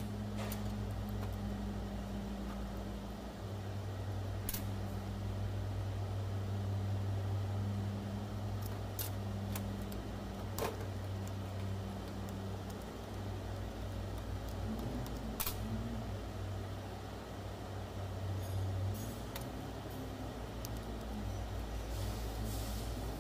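Steady low hum with scattered sharp metallic clicks and taps of tools and parts as a car starter motor is taken apart.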